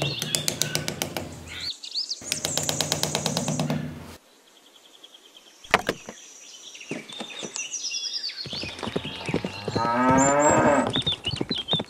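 A cow mooing in one long call near the end. Earlier come two runs of rapid tapping and a single sharp click.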